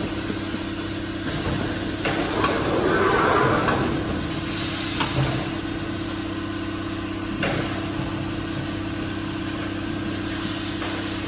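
Jug palletizer running: a steady electrical hum from its drives, swelling as the gantry moves the gripper head, with a few sharp clicks and a brief hiss of air about halfway through as the gripper works at the pallet.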